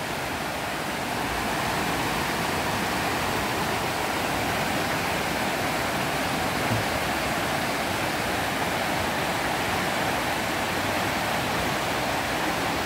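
Steady rush of a muddy, storm-swollen river running in white-water rapids over boulders.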